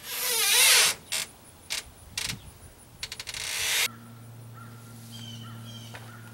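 Decking board panel scraping and knocking as it is worked into a deck hatch opening, loudest in the first second, with a clattering burst about three seconds in. Just before four seconds in it gives way to a steady low hum.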